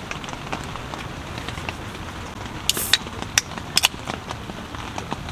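Heavy rain pattering steadily on tent fabric. About halfway through, an aluminium drink can is opened by its ring-pull: a short fizzing hiss followed by a few sharp clicks.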